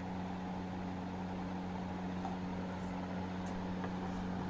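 A steady low mechanical hum with an even hiss, and a couple of faint clicks near the end.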